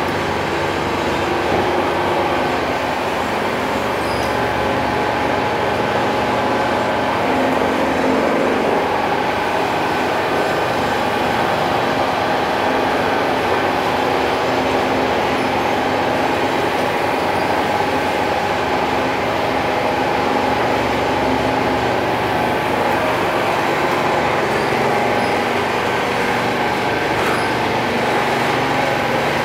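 Charcoal briquette-making machinery running steadily: a loud, continuous mechanical drone with a few held whining tones over it.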